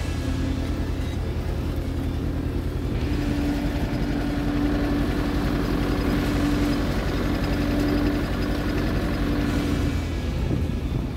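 Tractor engine running steadily under load while pulling a homemade bed former on a test pass, with a steady hum that grows a little stronger about three seconds in.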